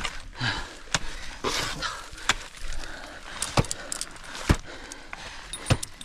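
Ice tools and crampons striking and scraping waterfall ice, with a sharp hit about every second.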